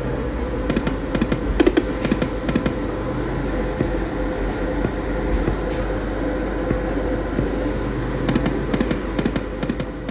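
Poker machine buttons being pressed in two quick runs of short clicks, the first near the start and the second near the end, while the bet and denomination are changed. Under them is a steady hum of the gaming room.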